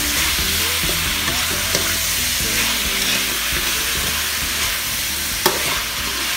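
Chinese kale and pork belly stir-frying in a wok over high heat: a steady sizzle, with a metal spatula scraping and clicking against the pan and one sharp knock about five and a half seconds in.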